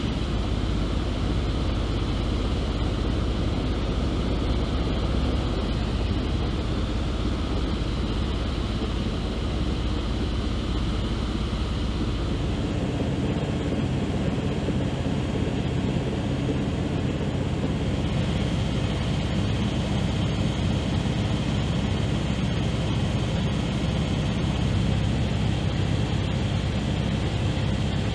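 Steady drone of aircraft engines heard from inside the aircraft in flight. Its low rumble shifts about twelve seconds in and again around eighteen seconds in.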